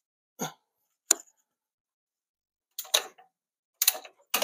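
Scattered sharp clicks and light metallic knocks from hands and a ratchet wrench working at the engine's accessory belt pulleys, in about five short groups, the later ones louder.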